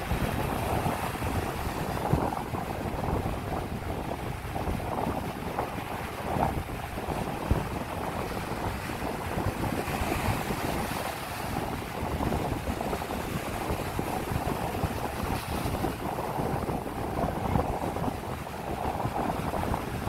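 Small ocean waves breaking and washing up the sand at the water's edge, a steady rush of surf with no let-up. Wind buffets the microphone throughout.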